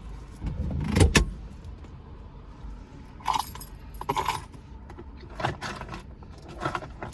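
Keys jangling in a couple of short bursts about halfway through, with a few sharp knocks and clicks, over the low steady rumble of a car.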